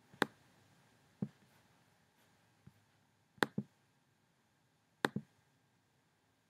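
Computer mouse button clicking: five or six sharp clicks a second or more apart, two of them in quick pairs, against faint room tone.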